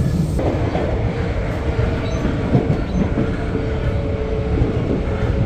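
Electric commuter train running on the rails, heard from inside the carriage as it pulls into the station: a steady low rumble with wheel clatter and a faint steady whine.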